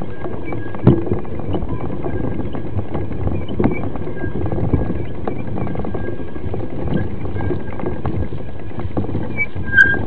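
Mountain bikes being pushed over a rough dirt trail: a steady rumble and rattle from tyres and frame, with a few sharp knocks, the loudest near the end.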